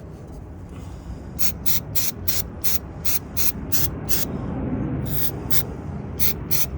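Aerosol carburetor cleaner sprayed in a string of short squirts, about three a second, then one longer burst and a few more quick squirts near the end, flushing a dirty carburetor's passages.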